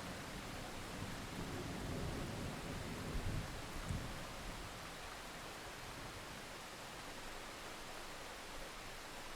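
Thunderstorm: rain falling as a steady hiss, with a low roll of thunder through the first four seconds or so that fades out, leaving only the rain.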